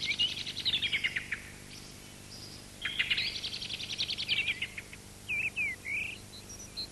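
Songbirds singing: a fast trill falling in pitch at the start, a second one about three seconds later, then shorter wavering and high chirping notes near the end.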